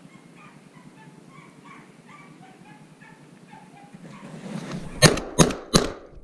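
Faint, repeated high yelps of a beagle hound giving tongue on a snowshoe hare's trail. Then three quick shotgun shots about a third of a second apart near the end.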